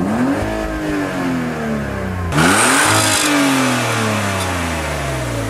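Car engine revved in Park, heard at the exhaust: the revs fall away, then about two seconds in it is blipped sharply again, the loudest moment, and the pitch sinks slowly as the revs drop back.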